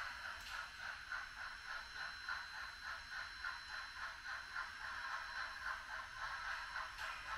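HOn3 model steam locomotive and freight cars running along the track, making an even, rhythmic rattle of about four beats a second.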